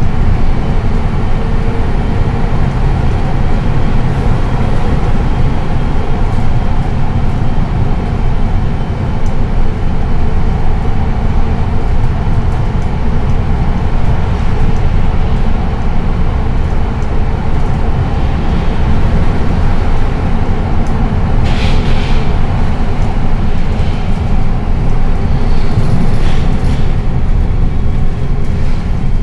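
Mercedes-Benz O405NH city bus running along the concrete O-Bahn guided busway, heard from inside the cabin: a steady loud drone of engine and tyres. A brief hiss sounds about two-thirds of the way through.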